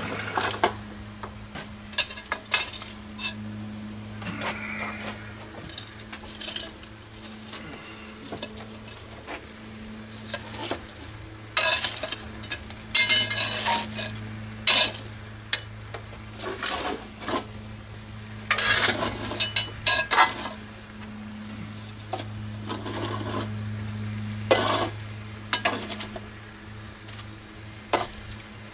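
Pans and a long-handled metal tool being scraped and clinked across the floor of a wood-fired oven in irregular bursts, as the pans are shifted by hand, over a steady low hum.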